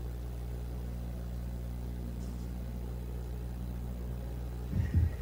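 Steady low electrical hum from the sound system, with a few soft low thumps near the end.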